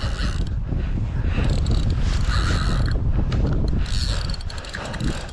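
Spinning reel being cranked in against a hooked salmon, its mechanism clicking as the line is wound, with the angler panting heavily from the fight.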